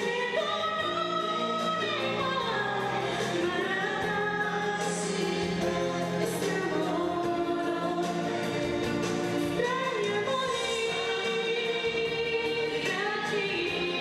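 Young woman singing a song solo into a handheld microphone over musical accompaniment, with long held notes and gliding phrases.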